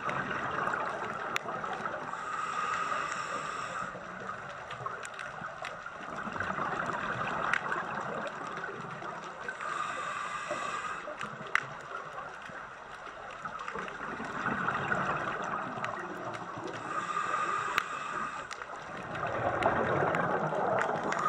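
Scuba regulator breathing underwater: a hissing inhale about every seven seconds, each lasting a second or two, with a rush of exhaled bubbles between them. A few sharp clicks are scattered through it.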